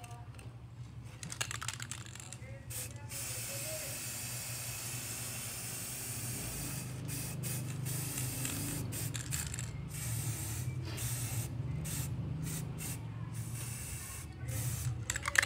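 Aerosol spray-paint can spraying: one long hiss about three seconds in, then a run of short bursts. Brief clattering rattles near the start and the end, like the can being shaken.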